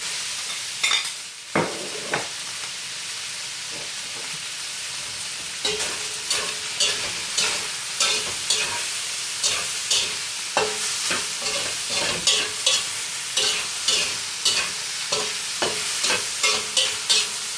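Chicken breast pieces sizzling in hot oil in a stir-fry pan, with a steady hiss throughout. A few knocks come in the first couple of seconds. From about six seconds in, a spatula scrapes and taps against the pan about twice a second as the food is stirred.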